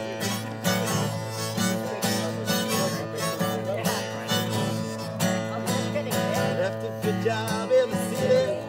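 Live acoustic guitar strummed in a steady rhythm, with a held melody line sounding over it, in an instrumental stretch of a campfire sing-along song.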